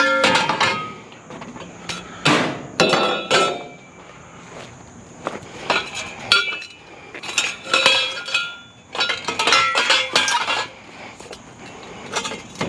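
Metal trampoline parts clanking as they are tossed onto a scrap metal pile: a series of sharp impacts with metallic ringing, coming in separate clusters every second or so.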